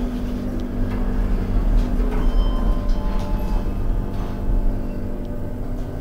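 Schindler passenger lift car travelling between floors, heard from inside the car: a steady low hum from the drive and ride, with a few faint clicks.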